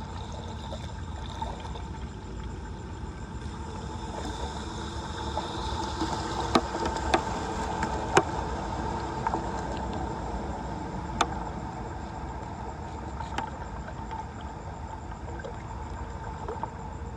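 Floodwater rushing and gurgling steadily down a storm drain, with a handful of sharp clicks or knocks in the middle.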